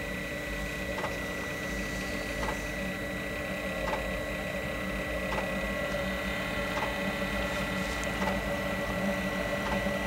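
Webasto diesel-fired coolant heater running during its start-up: a steady whine and hum from its blower, with the fuel dosing pump ticking about once every second and a half.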